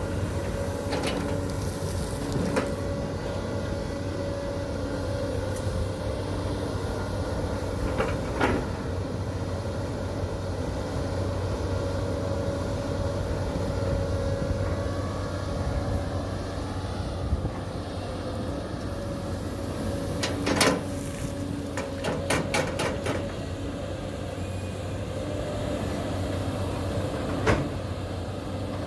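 Caterpillar 320D L long-arm excavator's diesel engine running steadily under work, with scattered sharp metallic clanks from the bucket and arm, including a louder clank about two-thirds of the way through followed by a quick run of several.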